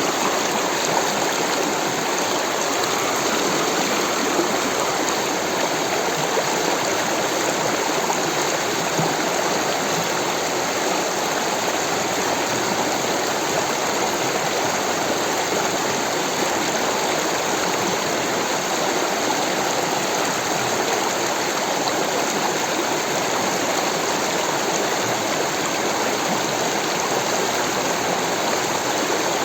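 Rushing water of a stream or small waterfall, a steady, even wash with no breaks.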